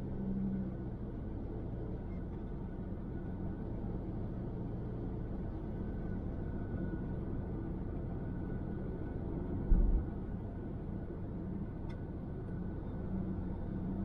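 Car driving along a road, heard from inside the cabin: steady low road and engine noise, with a brief low thump about ten seconds in.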